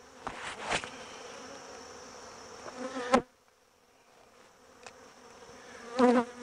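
Honeybees buzzing over an open hive frame, a steady hum with a few sharp clicks. The buzz drops away suddenly just after three seconds and comes back louder near the end.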